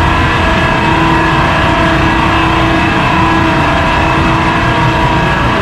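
Ship's engine-room generators running: a loud, steady machinery drone, a dense low rumble with a steady whine of several high tones over it.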